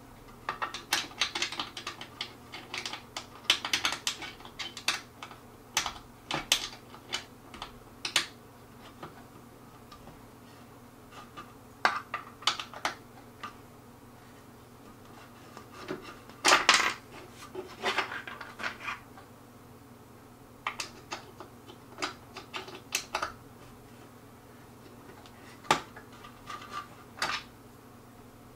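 Irregular metal clicks and clinks of a hand tool turning bolts as a wooden table's legs are tightened down, coming in scattered runs with pauses between.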